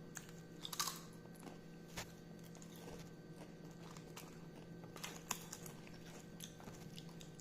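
Faint chewing of Pringles crisps, with a few sharp crunches about a second in, at two seconds and around five seconds.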